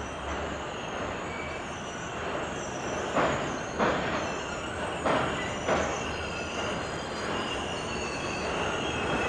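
Bilevel passenger cars rolling across a steel truss bridge. Their wheels knock over a rail joint in sharp pairs of clacks, one pair about three seconds in and another about five seconds in. A faint high wheel squeal wavers over the steady rumble.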